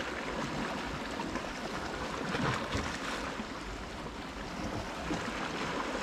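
Small sea waves washing and lapping at the shore, a steady wash of water that swells a little about two and a half seconds in.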